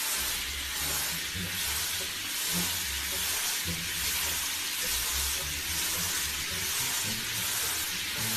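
Handheld shower head spraying water onto a dog's wet coat in a tub: a steady hiss of spray.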